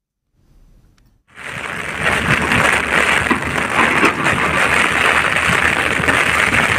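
Heavy rain pouring down in strong wind, a steady loud hiss that starts a little over a second in after a brief silence.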